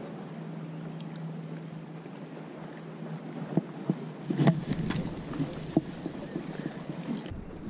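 A steady low hum with a light wash of wind. About three and a half to six seconds in come a handful of sharp clicks and knocks from hands working the spinning reel and line, the loudest about four and a half seconds in.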